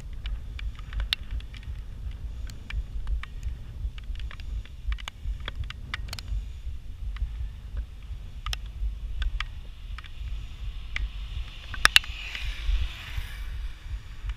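Wind buffeting the microphone of a camera on a moving bicycle, a steady low rumble with many irregular clicks and rattles. A brief hiss comes in about twelve seconds in.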